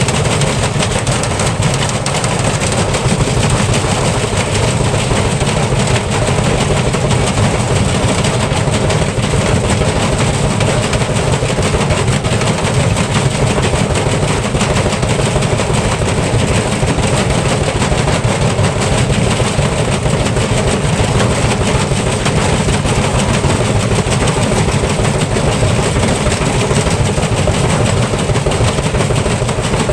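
Electrolux front-load washing machine spinning with a brick inside: a dense, steady clatter of rapid knocks over a low rumble.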